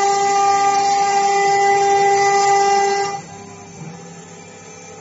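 ELE1515 CNC router spindle whining at a steady high pitch as its bit mills a circular cut through a wooden board. About three seconds in, the bit lifts out of the wood and the sound drops to the much quieter whine of the spindle spinning free.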